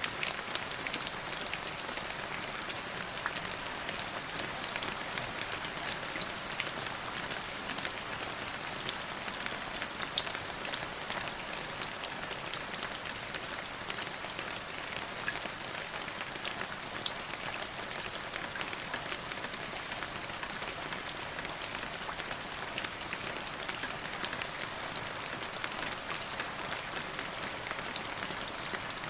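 Steady rain falling on a surface, with many individual drops pattering and no let-up.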